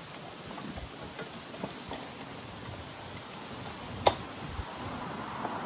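A few light clicks and one sharper click about four seconds in, over a steady low hiss, as a bicycle tyre and inner tube are handled on the wheel.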